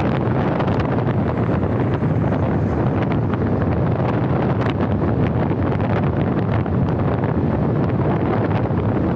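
Wind buffeting the microphone of a camera on a moving vehicle: a loud, steady rush with frequent small crackles, over road and traffic noise.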